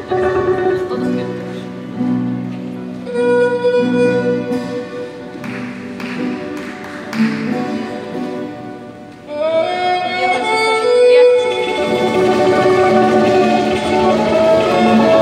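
Small string band playing a worship song: a violin melody over a strummed acoustic guitar and smaller plucked string instruments. The music grows fuller and louder about ten seconds in.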